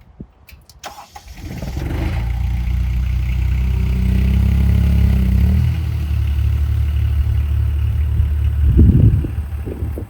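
Stand-on mini skid steer's engine rising to speed about a second in and running steadily under throttle, with a louder surge near the end.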